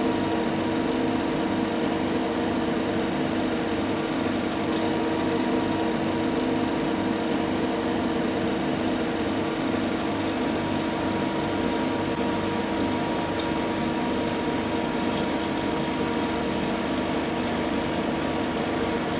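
Metal lathe running steadily: continuous machine noise with a steady hum and a high whine.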